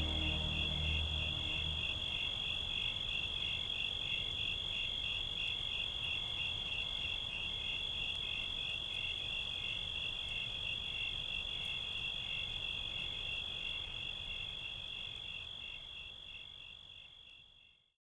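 A chorus of crickets chirping steadily in a high-pitched, evenly pulsed trill, fading out near the end. Low notes of music die away in the first two seconds.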